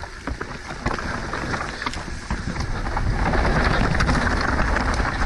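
Mountain bike riding down a dirt trail: wind rushing over the camera microphone, with tyre noise and scattered rattling clicks from the bike. It gets louder about three seconds in.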